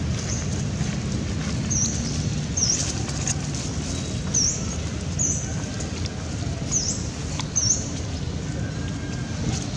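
Wind rumbling on the microphone, with a small bird giving short, high chirps about once a second.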